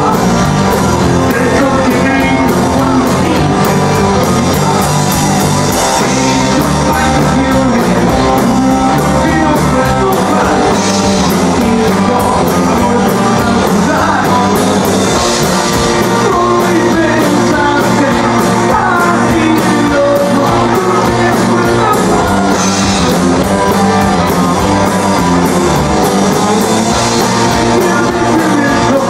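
Rock band playing live: electric guitars, bass and drum kit, with a singer's vocals over the top.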